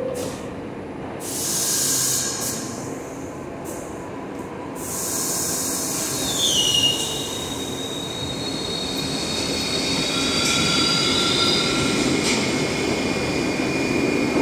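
New York City subway train at a station: bursts of air hissing in the first few seconds, then the wheels squealing with thin high whining tones, one of them sliding down in pitch. The rumble grows louder toward the end.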